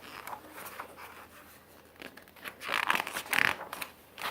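Paper rustling as a picture-book page is turned: faint scratches, then a louder papery swish about three seconds in.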